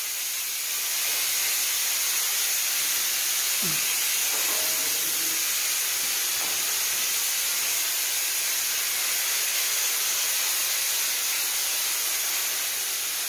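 Handheld disinfectant sprayer misting with a steady, high hiss.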